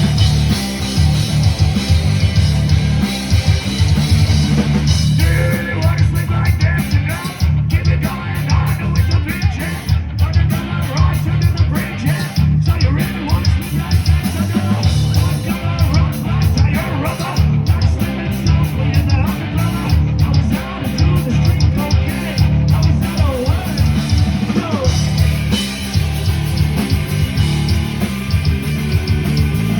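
Loud rock music playing steadily throughout.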